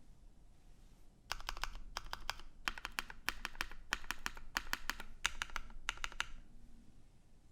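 Typing on a custom Iron165 mechanical keyboard with an aluminium case and plate and lubed vintage Cherry MX Black linear switches: quick bursts of keystrokes start a little over a second in and stop about a second before the end.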